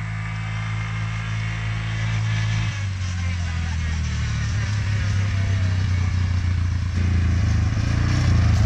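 Four-wheeler (ATV) engine running steadily as it is ridden. Its hum shifts in pitch about a third of the way in and grows louder near the end as the quad comes closer.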